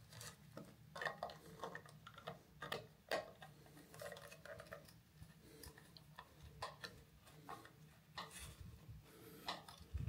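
Faint, irregular clicks and scrapes of a small screwdriver turning screws, fixing a smart wall switch's mounting frame to the wall.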